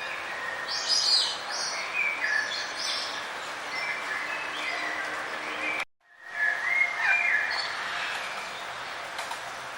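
Several small songbirds chirping and twittering over a steady background hiss. About six seconds in, the sound cuts out briefly and fades back in, an edit or loop join in the recording.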